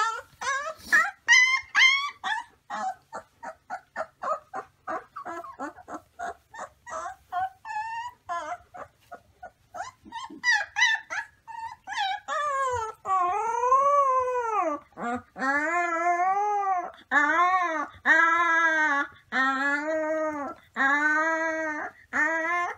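A puppy yipping and whimpering in quick short cries, then from about halfway through giving a run of howls, each about a second long and rising then falling in pitch.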